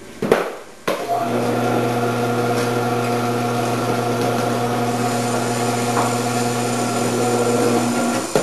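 Commercial vegetable cutter switched on about a second in, its motor running with a steady hum while cheddar cheese is pushed through the grating disc, then switched off near the end.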